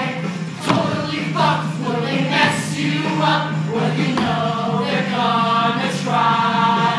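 A cast of men and women singing together in a rock musical ensemble number, over accompaniment. Two sharp knocks cut through, about a second in and near the end.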